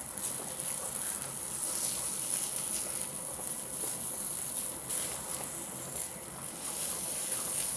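Makchang (intestine) sizzling on a mesh grill over charcoal: a steady hiss.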